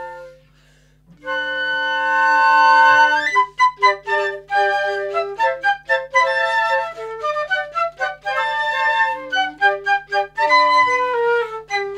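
Flute quartet playing in harmony: a held chord dies away, and after a pause of about a second a new held chord sounds, breaking about three seconds in into quick, detached notes in several parts.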